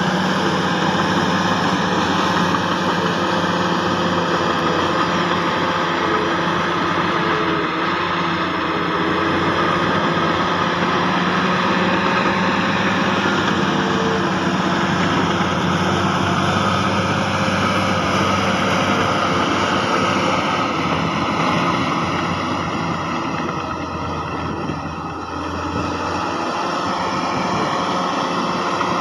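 Heavy diesel earth-moving machinery running steadily, dipping a little in loudness for a moment near the end.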